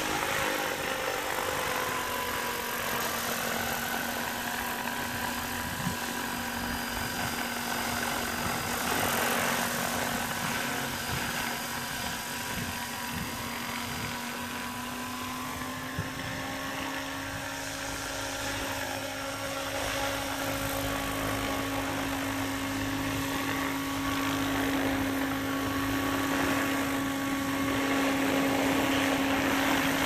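SAB Goblin 770 electric RC helicopter's motor and rotors running with a steady whine, stepping up slightly in pitch about halfway through.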